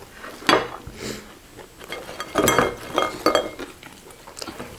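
Cutlery clinking against dishes during a meal: one sharp clink about half a second in, then a run of several ringing clinks a couple of seconds later.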